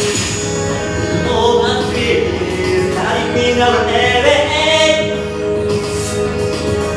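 Music: steady held backing tones with a singing voice gliding through long notes over them, from about a second in until about five and a half seconds.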